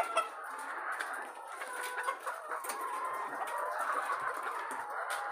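A large flock of caged laying hens clucking in a continuous overlapping chatter of many short calls.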